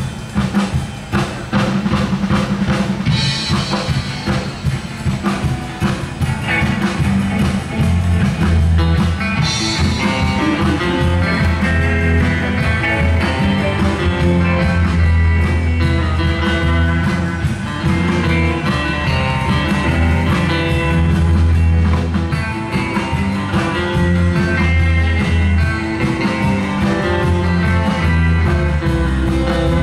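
Live band playing electric guitars, bass guitar and a drum kit, with busy drumming at the start and the bass line coming up strongly after several seconds.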